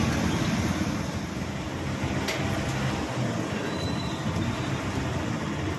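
Hot oil sizzling steadily around battered vadas deep-frying in an iron kadai, over a steady low rumble.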